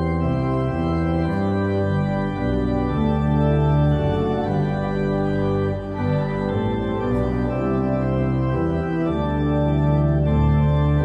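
Church organ playing the recessional at the close of Mass: loud sustained chords that change every second or so over a deep bass line.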